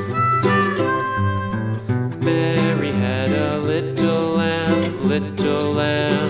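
Background music: a country-style instrumental with harmonica and acoustic guitar, thickening into a fuller band sound about two seconds in.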